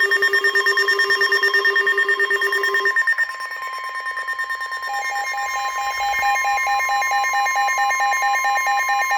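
NOAA Weather Radio's 1050 Hz warning alarm tone: a single steady high tone held throughout, the signal that a warning message follows. For the first three seconds a lower steady tone sounds with it, and from about five seconds in a rapid beeping alert tone joins it.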